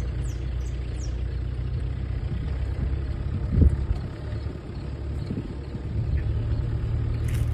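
Vehicle engine running with a steady low rumble while it moves slowly along a rough grassy track, with one brief louder knock about three and a half seconds in.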